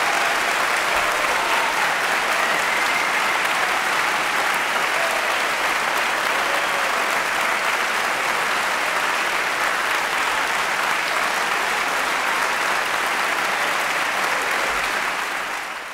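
Concert audience applauding steadily, fading out near the end.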